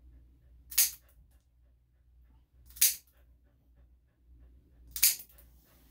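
Plier-style dog nail clippers snapping through a large dog's thick nails: three sharp clips about two seconds apart.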